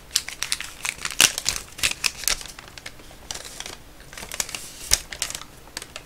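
Crumpled paper crinkling as it is unfolded by hand: a quick run of sharp crackles, a short lull about three seconds in, then more crackling.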